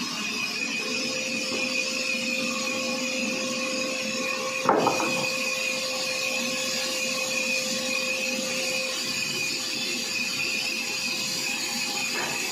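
Sawmill saw running with a steady, even whine and a held tone; a single sharp knock sounds about five seconds in.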